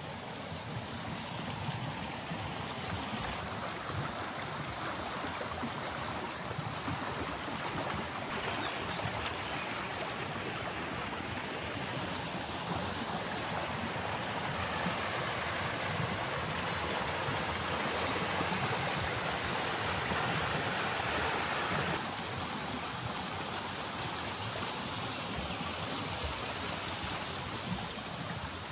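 Brook water rushing and splashing over stones as a steady wash of noise, louder for several seconds in the middle before easing back.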